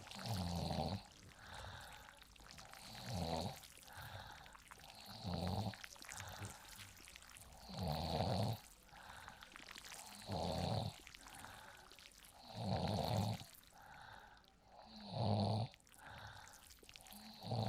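A person snoring in a steady rhythm: a loud snore about every two and a half seconds, with a softer breath between each, over a faint steady background noise.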